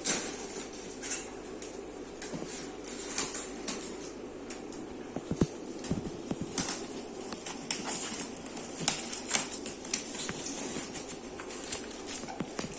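Plastic packs of frozen bloodworms being handled: irregular light clicks and taps over a steady low hum.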